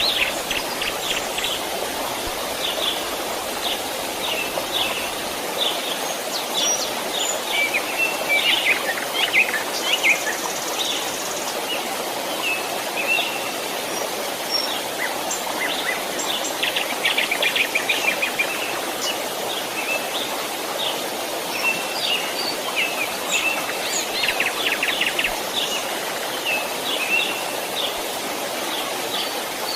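A stream runs steadily, with many birds chirping and trilling over it.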